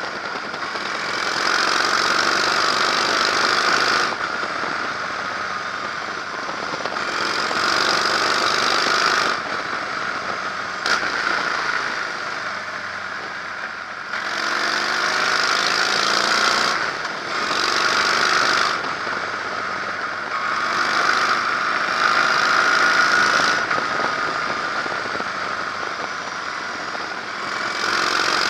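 Harley-Davidson Electra Glide's air-cooled V-twin engine running on the move, mixed with wind and road rush. The sound grows louder and eases off in turn every few seconds.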